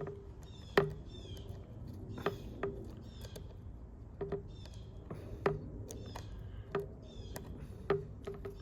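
Scattered light clicks and taps, about one every second or so, as the parts of Felco No. 2 pruning shears are handled and fitted back together. Short high bird chirps repeat over them.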